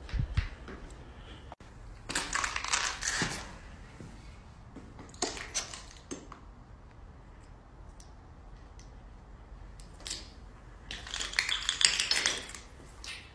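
Footsteps crunching and scraping over broken debris on a rubble-strewn floor, in three short spells: about two seconds in, at about five seconds, and again near the end.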